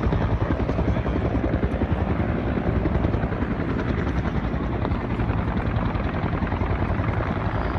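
Four helicopters flying close by, their rotor blades chopping steadily with a rapid, even beat.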